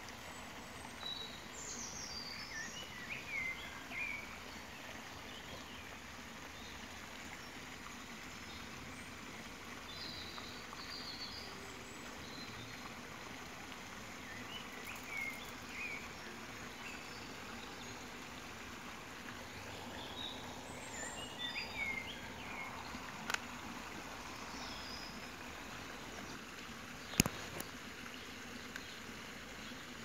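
Dawn chorus recorded on a phone: birds calling in short, scattered flurries of high chirps over a steady background hiss. Two sharp clicks come in the second half, the later one the loudest sound.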